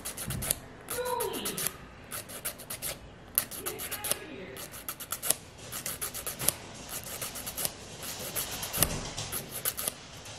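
Hand nail file rasping against the fingernails in short, quick, irregular strokes.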